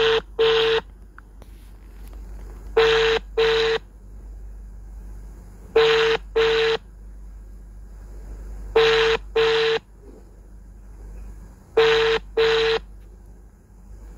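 Telephone ringback tone played through a phone's speaker. It is a double ring, two short tones close together, repeating about every three seconds, five times over. It signals that the dialled number is ringing at the other end and has not yet been answered.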